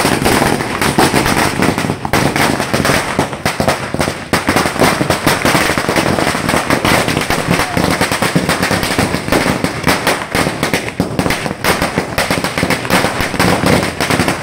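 A long string of firecrackers laid along the ground going off in a dense, rapid, unbroken chain of sharp bangs.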